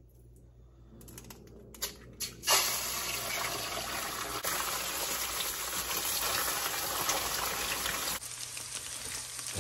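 A few light taps of an egg being cracked with a fork, then about two and a half seconds in, beaten eggs hit hot oil in a skillet and start frying with a steady, loud sizzle that eases slightly near the end as they are stirred with a wooden spatula.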